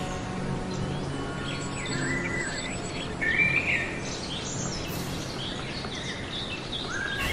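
Birds chirping and calling, many short overlapping calls and whistles, over a faint low steady hum.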